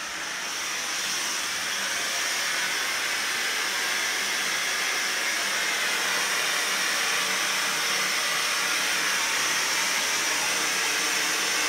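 Steam jetting from a steam-shower steam head fed by a Kohler K9 steam generator: a steady hiss that swells a little over the first couple of seconds and then holds. It shows the repaired generator is producing steam again.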